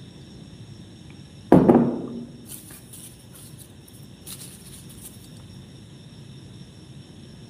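A sudden loud thump about a second and a half in, fading over about half a second, followed by a couple of soft, short rustles of a paper napkin being handled.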